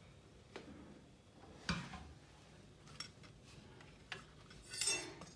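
A few light, separate clicks and knocks of small hard objects being handled, the loudest a little under two seconds in, with a short rushing sound near the end.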